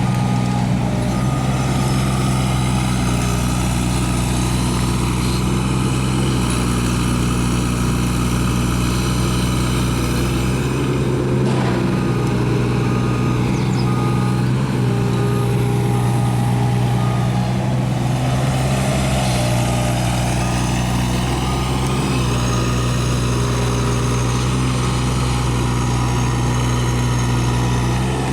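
Kubota U-17 mini excavator's diesel engine running steadily at working revs, its note shifting slightly a few times as the machine works.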